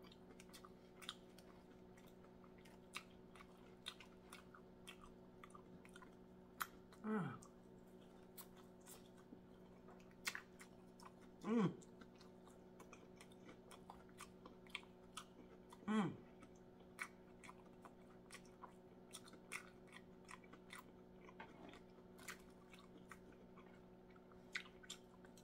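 Quiet chewing of fried fish, with small scattered mouth clicks and smacks, and three short "mmm" moans of enjoyment falling in pitch, about seven, eleven and sixteen seconds in. A steady low hum runs underneath.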